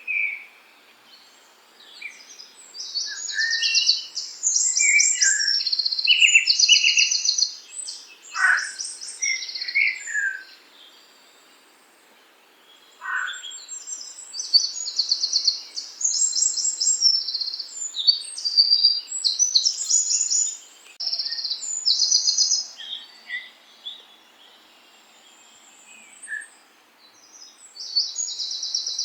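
Songbirds singing in long phrases of fast, high chirps and trills, with a few lower chirps, broken by pauses of a few seconds.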